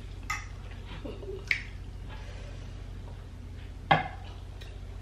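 Metal forks clinking and scraping against a skillet of noodles and glass bowls: a few short, separate clinks, the sharpest about four seconds in, over a steady low hum.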